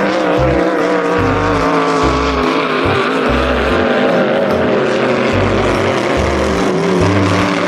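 Motorboat engine sound running steadily, its pitch wavering slightly. It plays over background music with a regular bass line.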